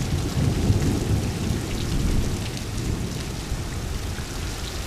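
Rain falling steadily in a thunderstorm, with a low rumble of thunder that eases off about halfway through.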